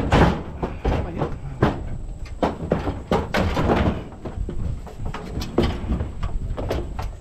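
Sheet-metal appliance bodies, an old electric range and a washer, being shoved and set into a pickup bed: a run of irregular metal knocks, clanks and scrapes.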